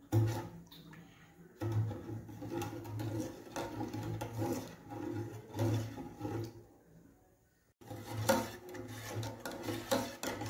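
Metal spoon stirring a milk mixture in a stainless steel saucepan, scraping and rubbing against the pan in irregular strokes, with two short pauses.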